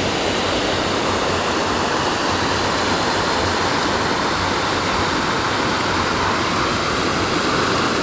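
Small waterfall cascading over rock ledges into a pool: a steady, close rush of falling water.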